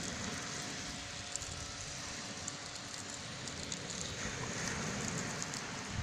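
Steady seaside hiss of surf on a pebble beach, with wind rumbling on the microphone and a few faint clicks as pigeons peck among the pebbles.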